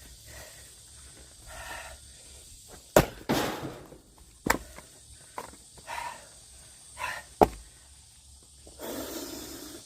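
Axe striking firewood, three sharp blows a second or more apart; the first is followed by a short splintering rasp as the wood gives.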